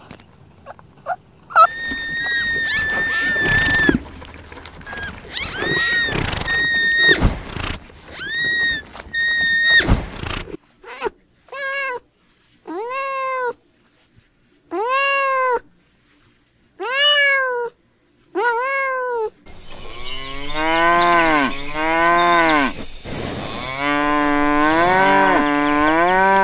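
A sequence of animal calls. First come high, thin squeaking calls, then about five separate rising-and-falling cries with short silences between them, and then lower, longer calls with a wavering pitch.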